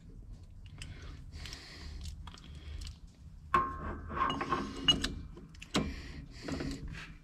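Metal clinks, knocks and scraping as a tapered carrier bearing and a pressing tool are handled and set square on a differential spool at a shop press. The busiest part, with a ringing metallic tone, comes a little past halfway, followed by a couple of sharp knocks.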